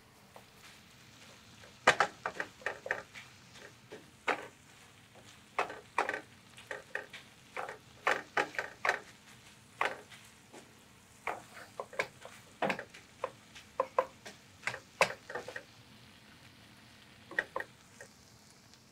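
A cooking utensil scraping and knocking against a skillet as sausage and cole slaw are stirred, in irregular clusters of clicks from about two seconds in until near the end. A faint sizzle of the frying food runs underneath.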